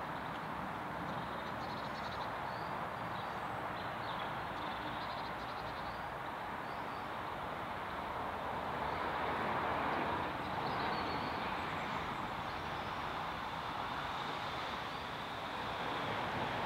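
Steady outdoor background rush that swells and fades about halfway through, with faint high bird chirps scattered over it.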